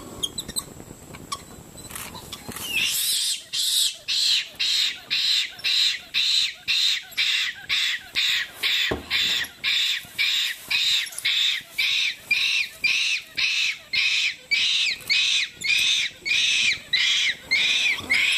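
An animal calling in a steady series of harsh, high-pitched pulses, about two a second, starting about three seconds in and keeping on without a break. A single knock sounds near the middle.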